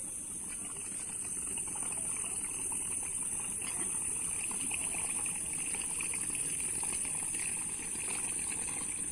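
Small motorboat's outboard engine running steadily at idle.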